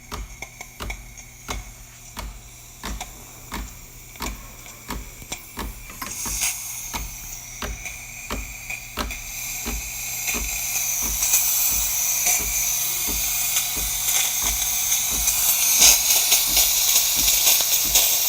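DeLonghi Magnifica espresso machine steaming: its pump pulses in a rapid, even rhythm of about two or three beats a second, and steam hiss from the wand comes in about six seconds in and grows louder from about ten seconds on. A strong, steady steam flow from the freshly replaced steam valve.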